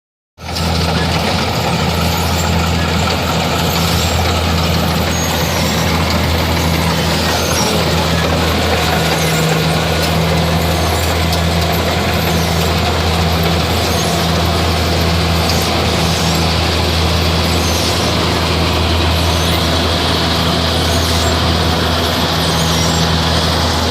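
Kubota DC-60 rice combine harvester running steadily: a low, even engine drone under the broad noise of its machinery.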